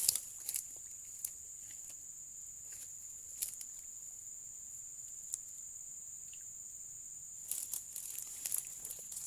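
Insects shrilling steadily in a high, even buzz, with a few scattered sharp clicks and a patch of crackly rustling near the end.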